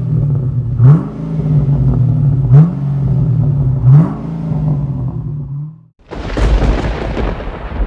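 2009 Pontiac G8 exhaust, a Street Demon cat-back system with X-pipe and quad tips, idling and blipped three times, each rev rising and dropping back quickly. About six seconds in it gives way to a crackling thunder-and-lightning sound effect.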